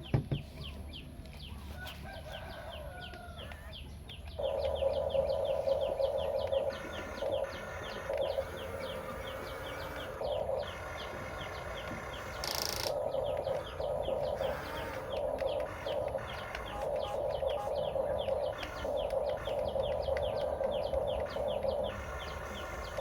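Huina 1550 RC excavator's motors and gear drives whining in on-off stretches as it is worked by remote control. The whine starts about four seconds in, and short bird chirps repeat throughout.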